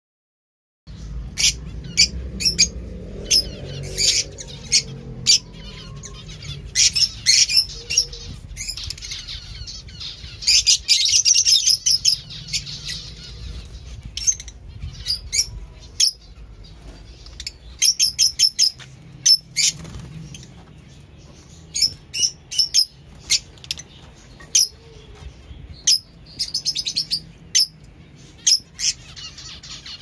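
A flock of Fischer's lovebirds calling: a constant stream of short, sharp, high chirps that come thickest in bunches, with many birds overlapping.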